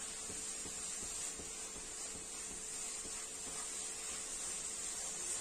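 Wooden spatula stirring grated beetroot and sugar in a frying pan, soft irregular scraping strokes over a steady hiss.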